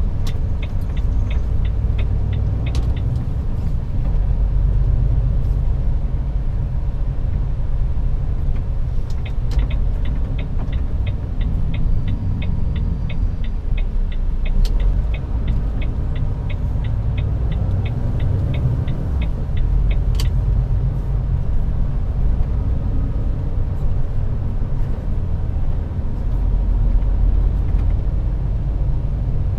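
Inside a Volvo truck cab: steady low engine and road rumble while driving slowly, with the turn-signal indicator ticking evenly for the first few seconds and again from about nine to twenty seconds in.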